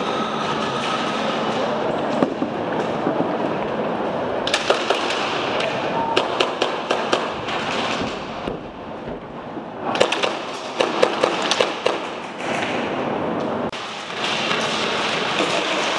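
Airsoft guns firing: two spells of rapid, sharp snapping shots, about four seconds in and again around ten seconds, over a steady rushing background noise.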